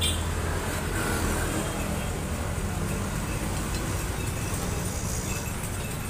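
Street traffic noise: a steady low engine hum, strongest in the first second, under an even hiss of passing vehicles.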